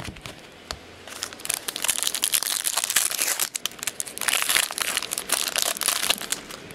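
Foil trading-card pack wrapper crinkling and crackling as it is handled and opened, with a short break about halfway.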